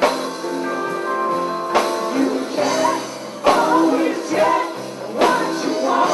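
Live rock band playing, with a man singing over guitar and drums and a strong accented hit about every second and three-quarters.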